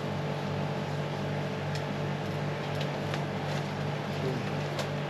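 Steady low machine hum with a few faint, light ticks.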